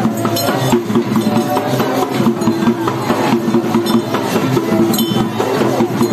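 Procession music: drums and percussion struck irregularly over a steady held tone.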